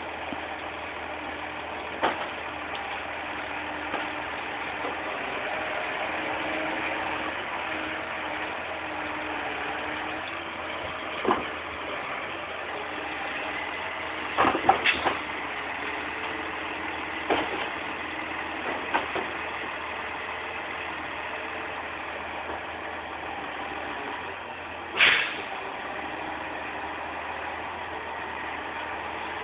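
Volvo log truck's engine running steadily during loading, with several sharp knocks of logs being handled; the loudest knock comes near the end.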